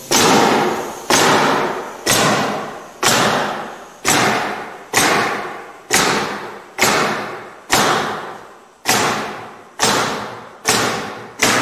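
Pneumatic nail gun driving nails through 3/4-inch CDX plywood into a wooden frame, about one shot a second, a dozen in all. Each shot is a sharp crack that dies away over most of a second.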